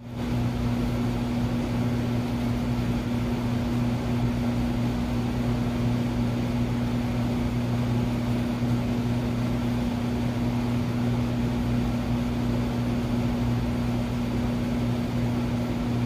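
A steady, unchanging electrical-mechanical hum with two clear low pitches, one an octave above the other, over a faint hiss, as from a running appliance such as a fan or air conditioner.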